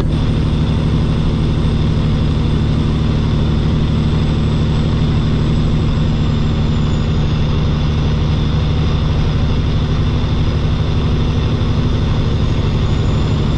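Semi-truck's diesel engine and road noise at steady highway cruise, heard from inside the cab: an even low drone that holds the same pitch throughout.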